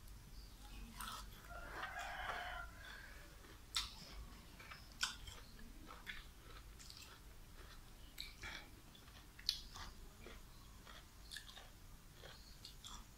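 Faint close-up sounds of a man eating catfish with his fingers: scattered sharp clicks and smacks of chewing and handling the fish. A rooster crows in the background about two seconds in.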